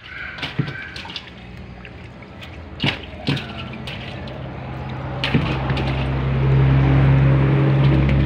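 Fish splashing in water in a plastic tub, with a few sharp splashes in the first half. From about five and a half seconds in, a steady low motor hum comes up and becomes the loudest sound.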